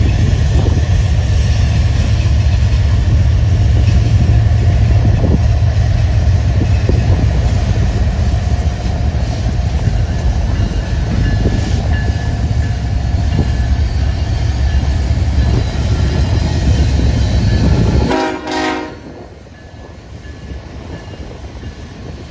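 Train running close by: a heavy low rumble with rail and wheel rattle that drops away abruptly near the end, followed by a brief pitched tone.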